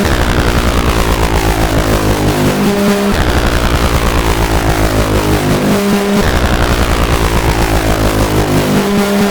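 Make Noise XPO Stereo Prismatic Oscillator, an analog eurorack oscillator, giving a harsh, fast-pulsing buzz under linear frequency modulation. The FM index is modulated, so the tone's brightness sweeps downward in a pattern that repeats about every three seconds.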